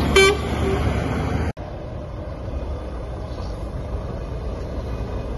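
Outdoor vehicle and traffic noise with a short pitched sound near the start. About one and a half seconds in it cuts off suddenly to a quieter, steady low rumble of heavy trucks.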